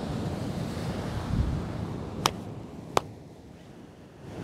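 Heavy sea surf breaking and washing over flat shoreline rocks, with wind rumbling on the microphone. Two sharp clicks, about two and three seconds in.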